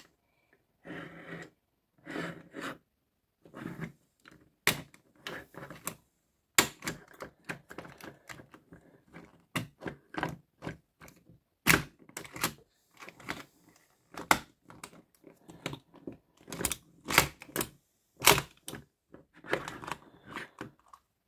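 Plastic Optimus Primal action figure being handled, its limbs and parts moved: irregular sharp clicks and snaps of its plastic joints, with short rattling scrapes in between.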